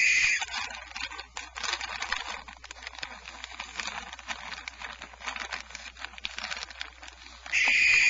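Adult female barn owl screaming: a harsh, hissing scream that ends just after the start and comes again about seven and a half seconds in. Between the two screams there is rustling and clicking.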